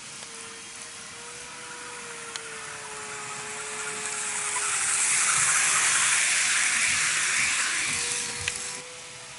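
N gauge model train, a 103 series, running past close by: the rolling rattle of its wheels on the track swells to a peak in the middle and fades near the end, over a steady motor hum.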